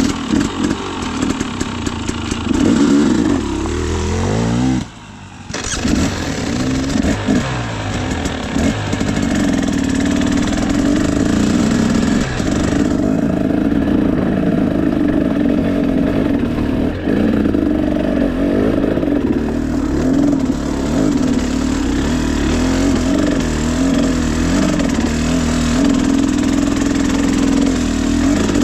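KTM 300 EXC two-stroke enduro bike engine with a Pro Circuit exhaust, revving up and down with the throttle under load on a climb. It dips briefly about five seconds in, then runs loud and fairly steady with small surges in pitch.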